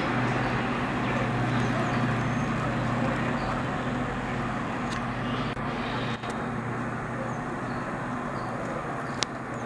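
Diesel locomotive engine running with a steady low hum, slowly fading, with faint bird chirps and a single sharp click near the end.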